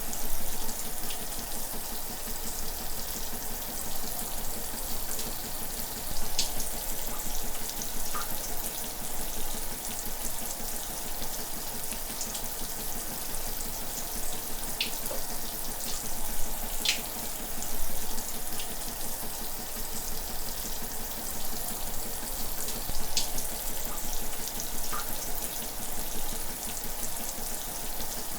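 Shower running steadily: water spraying and splashing, with scattered brief drip-like ticks over a continuous hiss.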